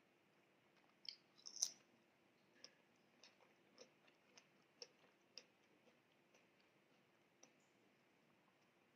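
Faint wet mouth clicks of closed-mouth chewing, roughly two a second for a stretch. A sharper, louder click comes about one and a half seconds in.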